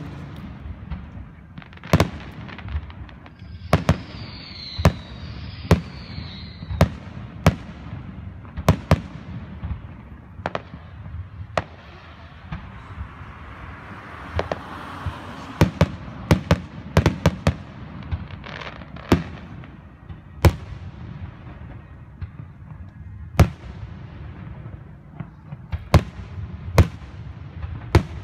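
Fireworks display: aerial shells bursting in an irregular run of sharp bangs, often two or three in quick succession, over a steady low rumble.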